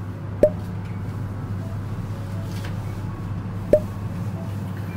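Steady low hum of a passenger lift car in motion, with two sharp clicks, one about half a second in and another about three seconds later.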